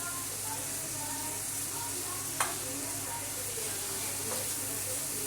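Chicken and tomatoes sizzling as they fry in a pan and are stirred, with one sharp tap against the pan about two and a half seconds in.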